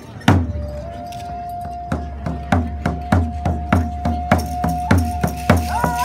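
Hand drum struck once, then beaten in a steady, even beat from about two seconds in, with a long high note held over it.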